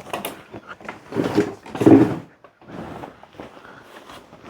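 Folding camper being lowered, its frame and canvas creaking and scraping with two louder groans about one and two seconds in: the odd sound of a box left inside being squashed as it folds.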